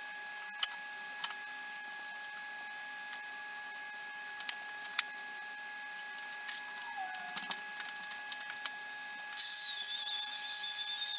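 A high-pressure steam cleaner's gun opens up near the end with a sudden, steady loud hiss and a high whistle. Before it come scattered light clicks and knocks of tools being handled over a steady faint hum.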